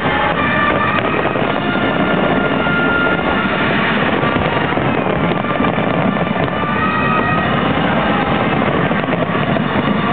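Fireworks display: a dense, continuous barrage of bursts and crackling with no single standout bang.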